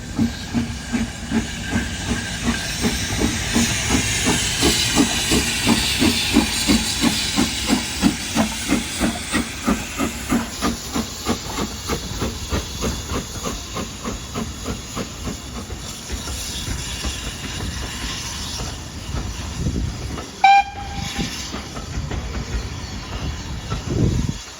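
BR Standard Class 4MT 4-6-0 steam locomotive 75069 working hard, with a rhythmic exhaust beat over a steady steam hiss. The beats grow fainter in the second half. A short whistle toot comes about twenty seconds in.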